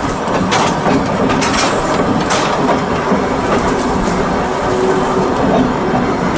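Volk's Electric Railway car running along the track, its electric motor humming steadily under the running noise. Its wheels click over the rail joints several times in the first half.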